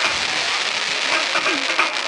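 Professional display fireworks crackling: a dense, steady shower of tiny rapid pops, like rain.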